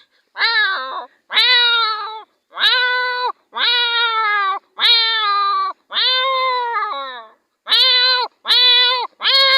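A man's voice imitating a tomcat's mating yowl: a run of about nine drawn-out "maow" calls, roughly one a second, each rising a little and then falling away.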